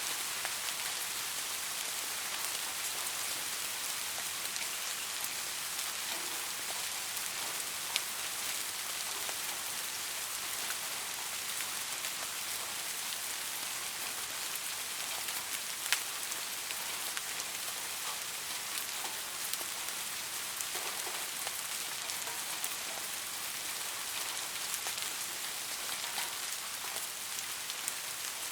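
Soft, steady rain falling, a continuous hiss with scattered individual drop taps, a couple of them sharper, about 8 and 16 seconds in.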